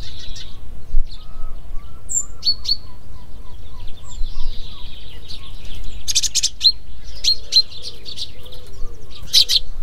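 Small birds chirping and twittering, with clusters of short, bright, high calls every few seconds over a faint low rumble.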